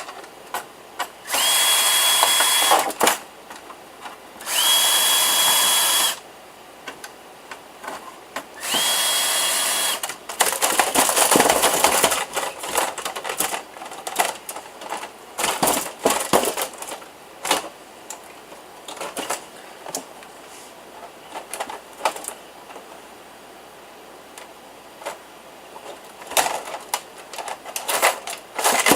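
Power screwdriver run in three short bursts, each motor whine climbing quickly to a steady pitch, while screws are driven out of a desktop PC case. Then follow scattered clicks and metallic clatter as the loosened parts and screws are handled.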